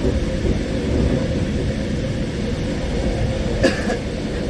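Mat '64 electric multiple unit running, with a steady rumble and a steady hum. One short, sharp sound comes about three and a half seconds in.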